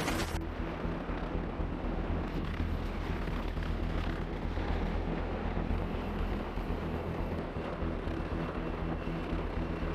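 Navy Seahawk helicopter hovering with a slung load: a steady low rumble of rotor and turbine engines, with wind noise.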